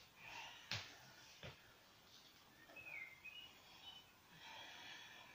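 Near silence: quiet room tone with two soft knocks in the first second and a half, from a person moving barefoot on a yoga mat and lowering into a kneeling lunge. Faint high chirps come in near the middle.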